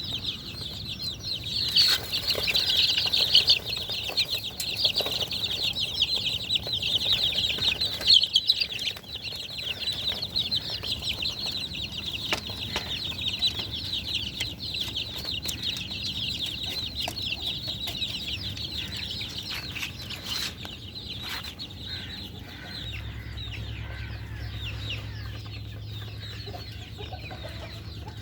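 A flock of chickens calling all at once: a dense chorus of many short, high cheeps, loudest in the first third and slowly thinning out. A steady low hum joins about three quarters of the way through.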